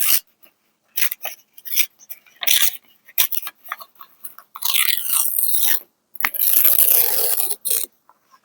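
Paper being handled and crinkled: a few short crisp rustles, then two longer crinkling rustles in the second half.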